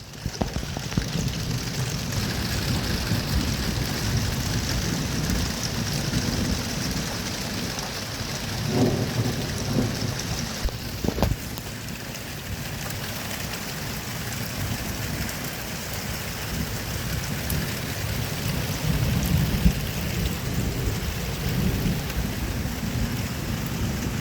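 Steady heavy rain during a thunderstorm, with thunder rumbling low underneath. The rumble swells about eight to ten seconds in and again around twenty seconds, and a sharp crack comes about eleven seconds in.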